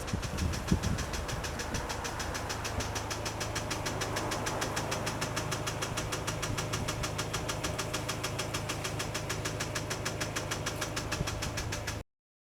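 BMW N20 turbocharged four-cylinder engine idling with a rapid, even ticking from the cylinder head, which the owner links to a Valvetronic system fault. The sound cuts off suddenly near the end.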